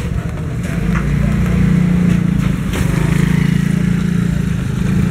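Diesel locomotive hauling a passenger train as it approaches, its engine a steady low drone that grows louder about a second in.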